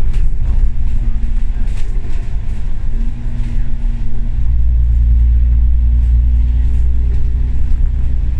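Double-decker bus running, heard from inside the cabin: a steady diesel engine drone with road and body rumble, the deep rumble growing stronger about four seconds in.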